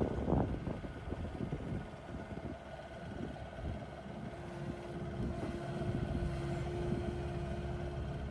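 Kubota KX080 excavator's 67-horsepower diesel engine running steadily. A steady higher tone joins about four seconds in, and the sound grows a little louder toward the end.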